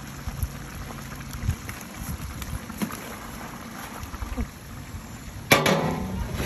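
Faint rustling and small clicks as banana leaves are pressed down over the rice in a large aluminium cooking pot. Then, about five and a half seconds in, a loud metallic clank that rings on as the pot's wide aluminium lid comes down onto it, sealing the biryani for dum cooking.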